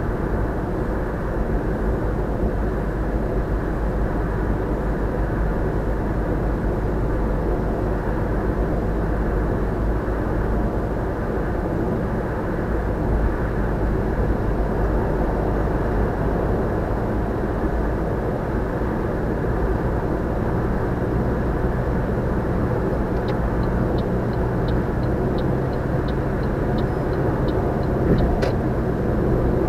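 Steady tyre and road noise heard inside a car's cabin, cruising at constant speed on an expressway. In the last few seconds a faint run of light ticks comes in, with a single sharp click just before the end.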